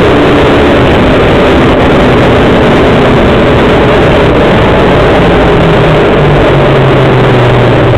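Engine of a small off-road vehicle running loud at a fairly steady speed while riding, with a lower tone coming up over the last few seconds.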